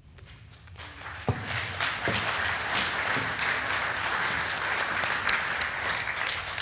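Congregation applauding, swelling over the first second or so and then holding steady.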